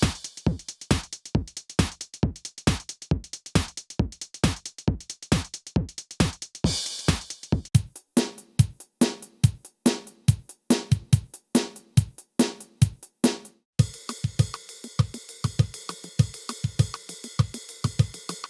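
Casiotone SA-50 mini keyboard's built-in drum rhythm playing a steady electronic beat of kick and snare, with cymbal hits near the start and about 7 seconds in. From about 14 seconds a held keyboard chord sounds over the beat, and both stop together at the end.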